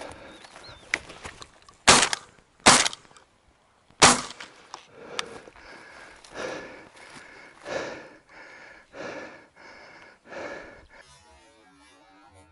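Three sharp shotgun shots about two seconds in, the first two less than a second apart and the third a little over a second later. After them come softer sounds repeating about once every second and a quarter.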